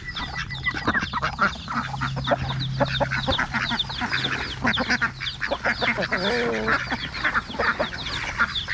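Large flock of domestic ducks quacking continuously over one another, with Rhode Island Red chickens calling among them.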